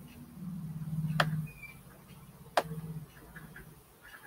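Two computer mouse clicks about a second and a half apart, with a low hum in between.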